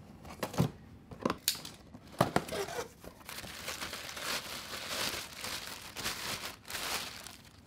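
A cardboard box cut open with a knife in a few short strokes, then a thin plastic bag crinkling steadily as it is pulled open around a new brake rotor.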